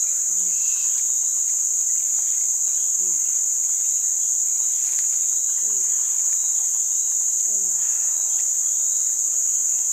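Steady, high-pitched chorus of insects from the riverside forest, unbroken throughout. A short low call falling in pitch repeats about every two to three seconds beneath it.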